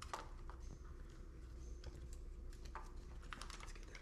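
Faint, scattered light clicks and rattles of a plastic e-bike display clamp and its cables being handled and fitted around the handlebar.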